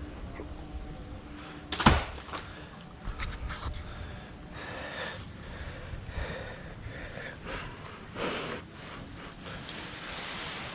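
A loud thump about two seconds in, followed by scattered smaller knocks and a brief rustling a few seconds later.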